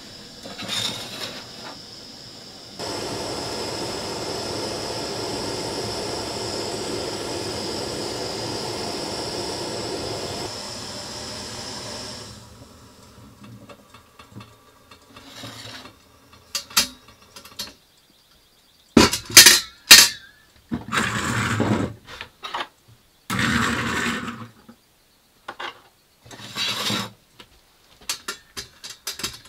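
Camp stove burner fed from a red fuel bottle hissing steadily, coming on abruptly about three seconds in and cutting off after about ten seconds. After it come scattered clinks and knocks of a mug, lid and small pot being handled on a wooden counter, with a few short rustling bursts.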